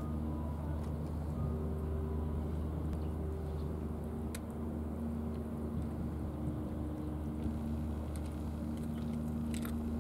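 Steady low mechanical rumble with a faint constant hum, like distant engine noise, with a few light clicks about four seconds in and near the end.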